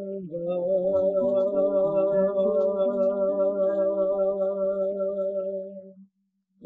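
Closing chord of a Paraguayan guarania: voices holding the final note, wavering slightly, over acoustic guitar. It fades out about six seconds in.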